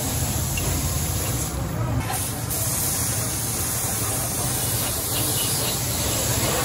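Gravity-feed compressed-air spray gun hissing steadily as it sprays paint, over a steady low hum.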